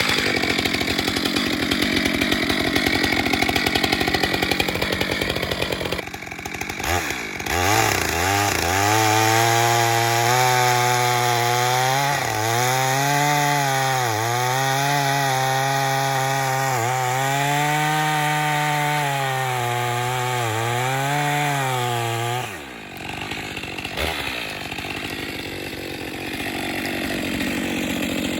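Chainsaw cutting into the trunk of a dead ironbark at full throttle, the first cut of a felling notch. The engine note sags and picks up again every couple of seconds as the chain loads up in the hardwood, with brief drops in revs about six seconds in and again near the end.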